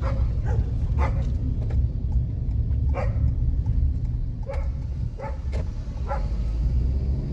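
A dog barking, about seven short barks at irregular intervals, over the steady low rumble of a car driving slowly.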